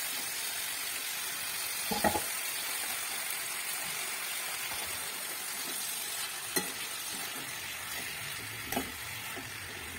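Leafy greens (saag) with freshly added tomato and ginger sizzling in oil in a steel kadai, stirred with a steel spoon that clinks against the pan three times.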